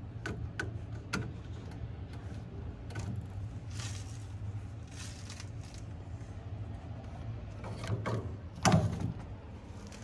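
Screwdriver and hands working at the screw terminals and wiring of an air conditioner's outdoor control box while the crankcase heater is disconnected. A few light clicks come early, then a couple of brief scraping rustles, and a louder knock near the end, over a steady low hum.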